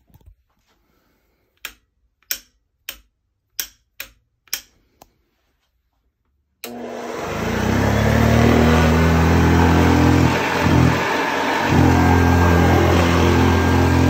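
A run of sharp knocks, then a little past halfway the 1960 Hoover Convertible Model 66 upright vacuum cleaner is switched on: its motor comes up to speed over about a second and runs steadily with a low hum, dipping briefly a few seconds later.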